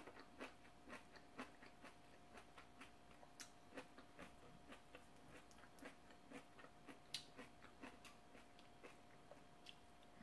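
Faint chewing close to the microphone: soft, wet mouth clicks coming irregularly, two or three a second, over a faint steady hum.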